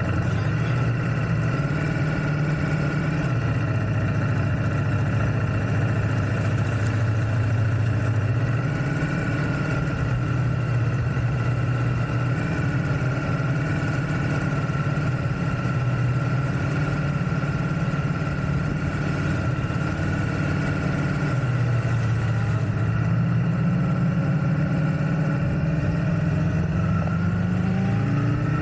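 Ducati Multistrada V4S's V4 engine running at low revs, its pitch stepping up and down several times as the throttle is eased on and off, and rising near the end.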